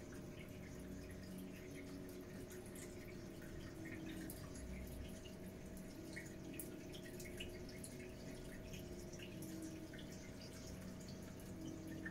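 Reef aquarium water trickling and dripping as it circulates, with scattered small splashes over a steady low hum.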